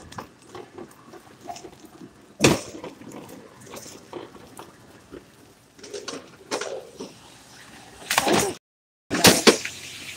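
Handling and rustling noise with scattered knocks, with one sharp knock about two and a half seconds in. Near the end there is a cluster of louder rustling bursts, broken by a moment of dead silence.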